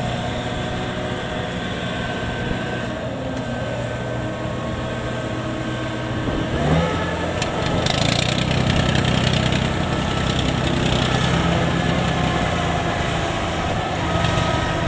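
Kubota combine harvester's diesel engine running steadily, then revving up about six and a half seconds in and running louder.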